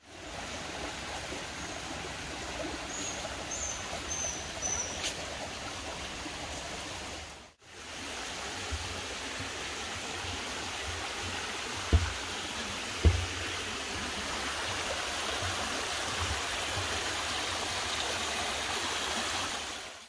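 Mountain stream running over rocks, a steady rush of water, briefly cut off about a third of the way through. Two dull thumps come close together about two-thirds of the way in.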